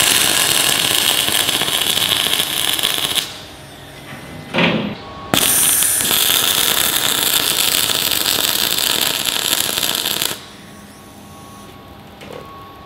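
MIG welder arc crackling and hissing while welding 5 mm steel bulkhead plate, in two runs: one of about three seconds at the start and a longer one of about five seconds from about five seconds in.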